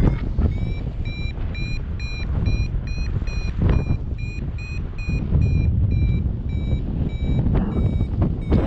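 Paragliding variometer beeping about three times a second, its pitch rising a little mid-way and then dropping: the vario signalling that the glider is climbing in weak lift. Underneath is a steady low rush of wind on the microphone.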